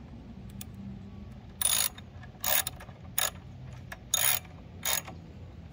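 Socket ratchet clicking in about five short rasping bursts over three seconds as a 14 mm socket runs the crank nut down onto the pedal spindle.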